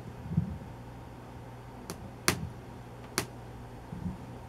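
Handling noise at a microphone and music stand: three sharp clicks and two soft low thumps, over a steady low hum from the PA and bass amplifier.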